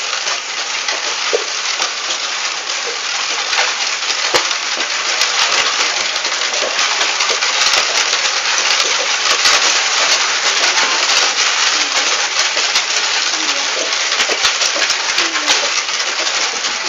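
Horse-drawn cart rolling along a street: a steady rattle and grind of the wheels on the road surface with many small clicks and clatter from the jolting cart, louder through the middle.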